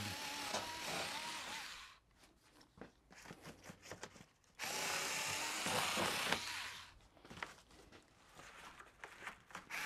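Handheld electric cutter running and slicing through cardboard in two runs of about two seconds each, one at the start and one starting about four and a half seconds in. Light clicks and rustles come between the runs.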